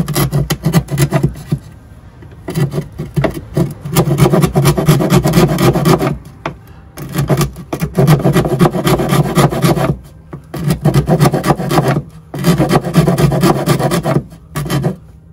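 Hand file rasping against the edge of an RV's house-battery compartment in about five spells of quick back-and-forth strokes, with short pauses between. The material is being filed down to give clearance for the battery posts.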